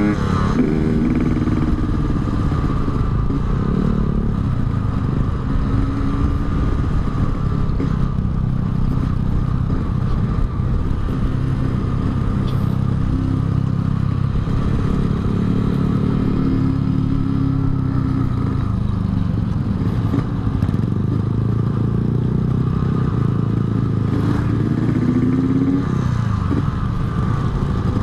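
Yamaha RX-King's two-stroke single-cylinder engine, fitted with an aftermarket Altec C20 exhaust, running under way at steady speed. The engine note rises briefly with throttle a few times, near the start and again near the end.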